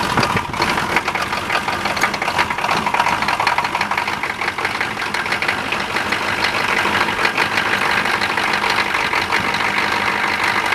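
GM 6.2-litre V8 diesel in a K5 Blazer running just after a cold start on glow plugs, with a rapid, even diesel knock.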